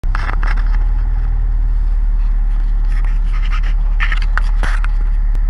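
Fishing boat's engine running with a steady low rumble, with scattered scrapes and knocks from gear being handled on deck, the loudest about four to five seconds in.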